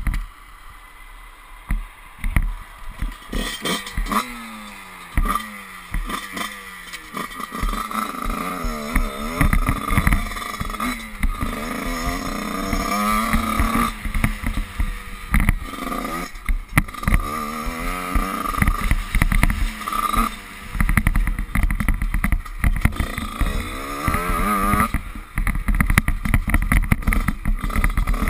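Motocross bike engine, quieter at first, then revving in repeated rising and falling sweeps as the bike accelerates around a dirt track. Knocks from the bumps and wind noise run through it.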